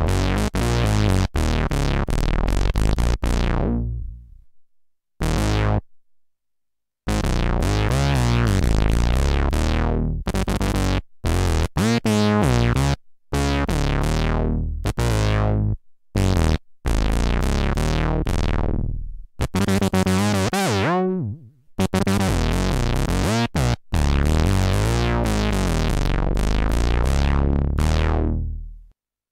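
Homemade analogue synthesizer prototype played in chord phrases with short gaps, the bright top of the tone fading first as each phrase dies away. In places the tone sweeps up and down.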